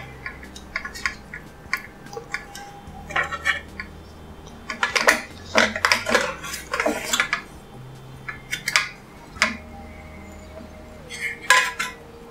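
Metal spoon scraping and clinking against a stainless steel idli plate while steamed rava idlis are prised out and set on a serving plate, in scattered bursts of taps and scrapes with short pauses between.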